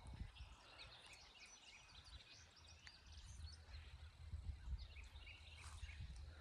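Faint outdoor birdsong: many short chirps and calls over a low rumble.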